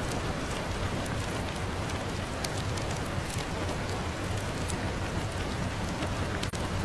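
Steady rain ambience mixed with a crackling fireplace: an even hiss over a low rumble, with scattered sharp ticks throughout and a brief dip in level near the end.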